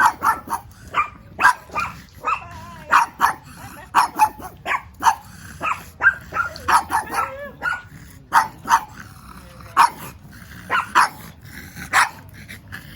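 Dog barking and growling in play: a quick run of short, sharp barks and yips, about two a second.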